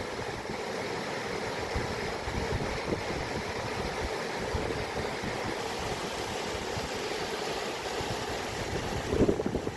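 Running water making a steady rushing noise, with a brief louder swell about nine seconds in.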